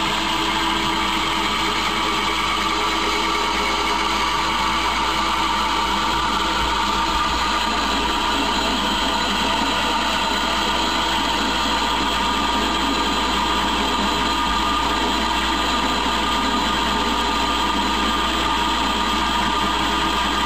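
Emco Unimat SL mini lathe, converted to CNC, running steadily as its cutting tool turns down the face of a spinning metal workpiece: an even machine noise with several held tones.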